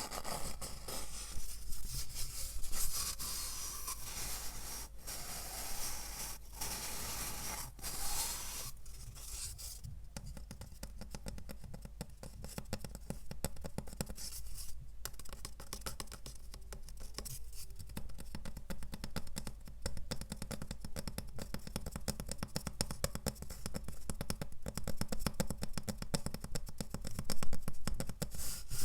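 Close-up scratching and scraping at the microphone: scattered strokes at first, then from about ten seconds in a fast, dense run of fine scratches.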